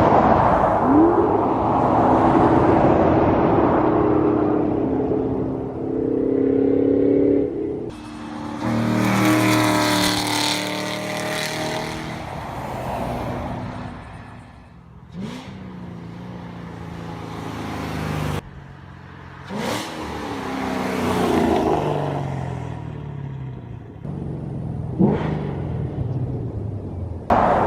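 Ford Mustang GT V8 on long-tube headers, an off-road X-pipe and Corsa Extreme exhaust, revving and accelerating hard in a string of short clips. The engine note climbs in steps and then runs loud and dense, breaking off abruptly several times between clips.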